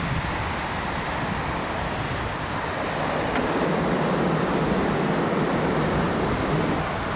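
Steady rush of ocean surf with wind buffeting the microphone; the rush grows a little fuller from about three seconds in.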